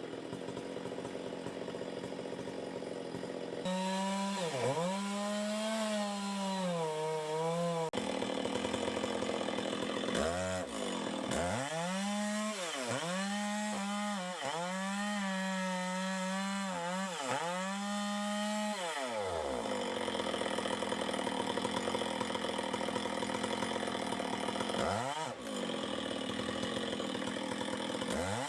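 Two-stroke chainsaw running at high revs and cutting wood, its engine pitch dipping sharply and climbing back several times, with stretches of rougher, lower-revving running between.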